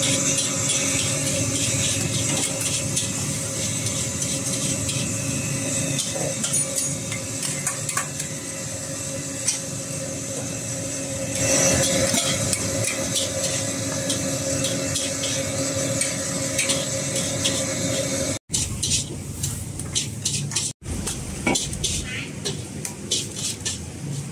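Egg noodles stir-frying in a steel wok over a strong flame: steady sizzling, with a metal ladle scraping and clinking against the wok over a steady hum. The sizzle swells louder with a burst of steam about twelve seconds in, and the sound cuts out briefly twice near the end.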